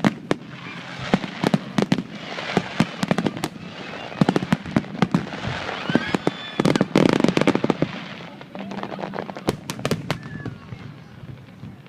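Fireworks going off: a fast, irregular series of sharp bangs and pops, with a dense crackling that builds through the middle and is heaviest about seven seconds in, then thins out to scattered pops.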